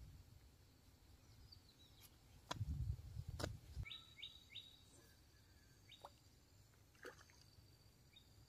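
Faint bird calls in a quiet outdoor background: a quick run of three short descending chirps about four seconds in, with a few more single chirps later. A brief low rumble with sharp clicks comes about three seconds in.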